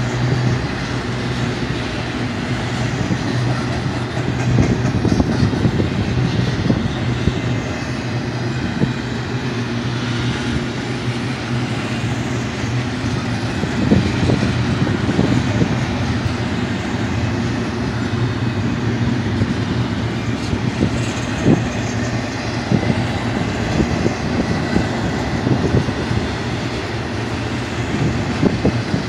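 Intermodal freight train cars, carrying containers and trailers, rolling past with a steady rumble of wheels on rail. Short clicks and knocks come and go throughout.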